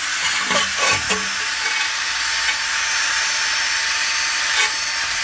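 Cordless drill spinning a wire wheel against the steering knuckle's bearing bore, a steady scratching hiss with a few brief knocks about a second in. The wire wheel is scrubbing rust and grease off the mounting surface so the new wheel bearing sits flat.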